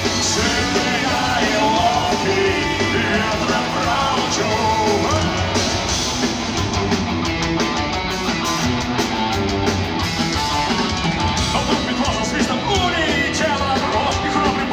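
Live punk rock played loud by a band, with singing over it.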